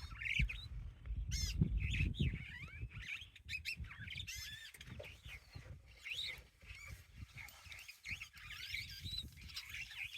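A busy chorus of many small birds chirping and chattering, with overlapping quick calls.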